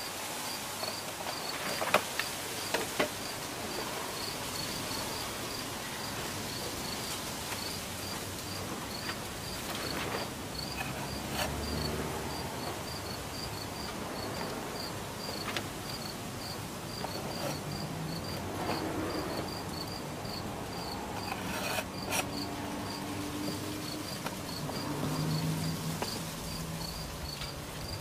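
An insect chirping steadily in short, high, evenly spaced chirps, about two or three a second, with a few light taps and scrapes of a steel palette knife working epoxy adhesive into a split clapboard.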